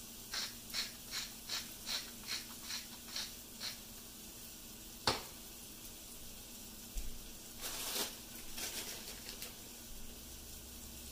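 Ground beef frying in a nonstick pan with a faint, steady sizzle, while a salt shaker is shaken over it in about nine quick, even shakes over the first four seconds. A single sharp click comes about five seconds in, and a short scratchy rasping run of sound follows around eight seconds in as pepper goes on.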